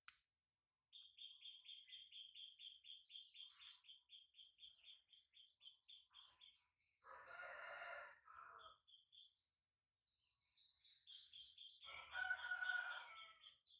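Faint animal calls. A fast, even, high chirping, about five notes a second, runs for several seconds, then gives way to a longer, fuller call. The chirping comes back, and a second fuller call near the end is the loudest sound.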